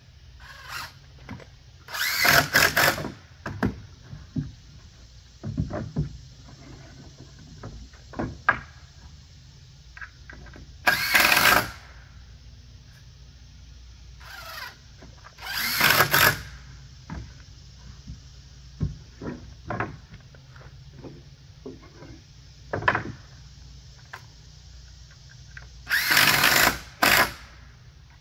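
Cordless drill driving screws into the wooden pickets and rails of a deck railing: several whirring runs of about a second each, with shorter bursts and small knocks between them.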